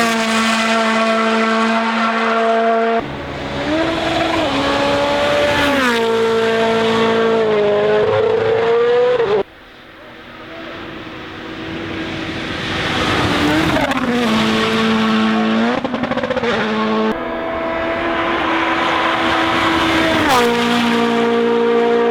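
Rally1 cars' 1.6-litre turbocharged four-cylinder engines at full throttle, in several short clips cut together: revs held high and steady, then pitch rising and dropping with gear changes and lifts. About ten seconds in, one car comes up from quieter to loud.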